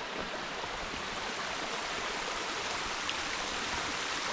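A small mountain stream rushing and splashing down the hillside over rocks, a steady hiss of running water.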